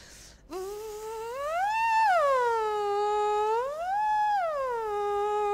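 A soprano voicing through a straw in a semi-occluded vocal warm-up exercise, meant to stretch and tone the vocal cords. Her voice slides up and back down in pitch twice, then holds a steady note.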